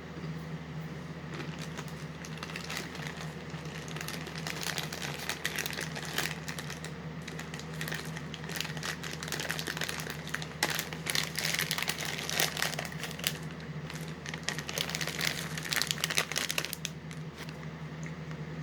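Plastic snack packaging crinkling and rustling as it is handled in bursts, over a low steady hum.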